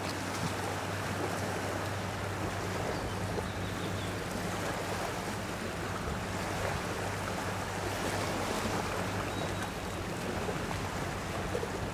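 Sea water washing with some wind noise on the microphone, and a steady low hum underneath.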